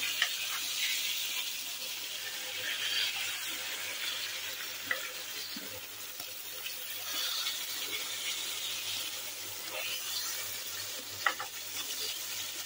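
Ribeye steak searing in a frying pan of butter and beef-fat drippings, sizzling steadily, with a couple of sharp clicks of metal tongs against the pan.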